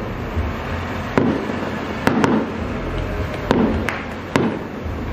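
Aerial fireworks going off: about six sharp bangs at uneven intervals, two of them close together, over a steady background din.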